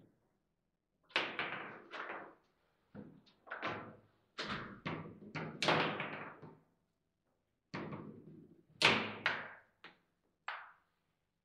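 Table football (foosball) in play: the ball knocking against the plastic player figures and the table's walls, a run of sharp knocks and thuds in quick clusters that stops shortly before the end.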